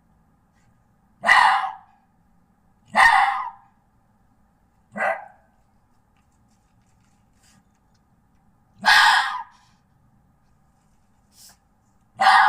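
Red fox giving short, harsh barks, each about half a second long, repeated every couple of seconds with a longer pause midway; about five calls in all, the last one faint.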